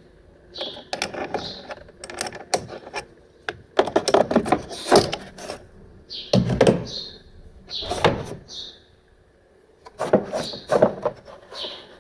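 Irregular clicks, knocks and clatter of hard objects being handled, with a short lull about three-quarters of the way through.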